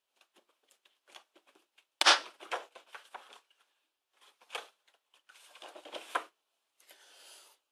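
Hands handling hard plastic coin capsules and clear plastic packets: small clicks, a sharp knock about two seconds in, and plastic crinkling towards the end.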